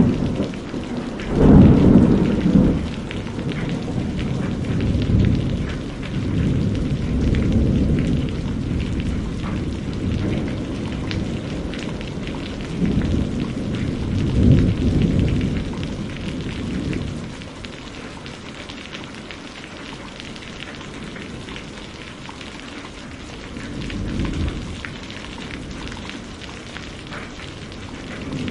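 Steady heavy rain with rolling thunder: a loud thunderclap about two seconds in, long low rumbling that swells again about halfway through, then dies down to rain with a fainter rumble near the end.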